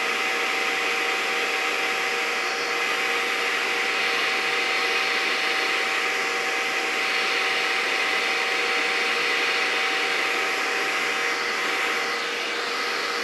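Bagless upright vacuum cleaner with a 12-amp motor running steadily: an even motor hum with two held tones under a hiss of rushing air.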